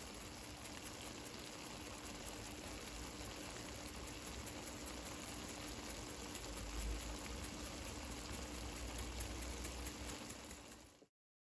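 Creamy coconut spaghetti simmering in a stainless steel skillet on the stove: a steady, even sizzle with fine crackling, over a faint steady hum.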